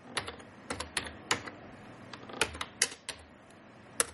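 Typing on a computer keyboard: a run of irregular keystrokes as a short command is typed, with one sharper stroke near the end.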